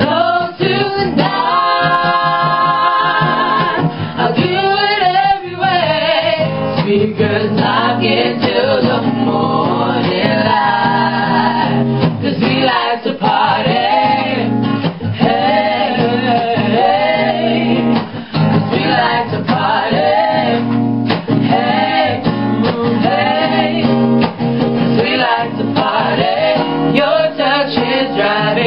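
Three women's voices singing a song together.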